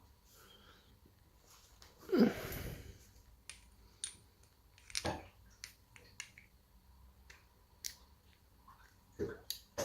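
Small, sharp clicks and taps of a euro lock cylinder and shim or pick being handled and worked, with a longer, louder sound about two seconds in.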